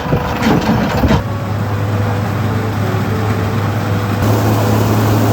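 Heavy farm machinery engine running at a steady speed, a continuous low drone.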